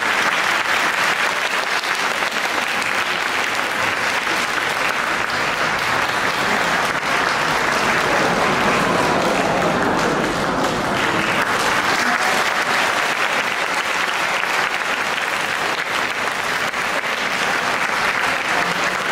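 Audience applauding steadily, without a break.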